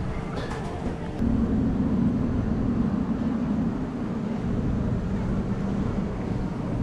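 Street traffic ambience: a motor vehicle's low engine hum grows louder about a second in and slowly eases, over a steady background murmur.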